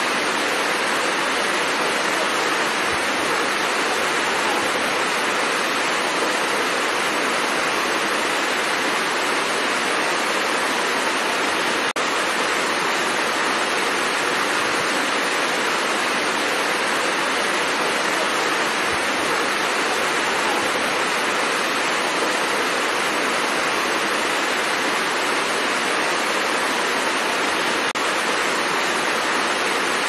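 Waterfall cascading over rocks: a steady, even rush of water with no change in intensity, apart from a brief dip about twelve seconds in.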